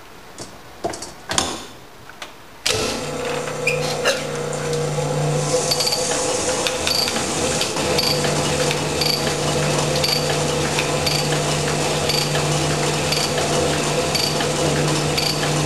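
A cylinder honing machine starts about three seconds in and runs steadily, a brush hone turning in an oil-flooded cylinder to finish a plateau hone, with a light tick about once a second. A few sharp clicks of the tooling being handled come before it starts.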